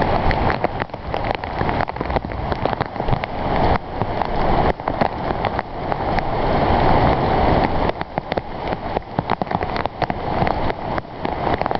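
Heavy rain pouring onto a flooded asphalt driveway: a dense, steady hiss of falling water with many sharp close drop taps mixed in.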